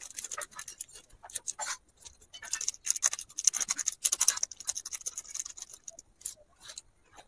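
Small foil Maggi masala sachet crinkled and squeezed between the fingers as its seasoning is shaken out, a dry rapid crackling in clusters. It thins to a few scattered crackles after about five seconds.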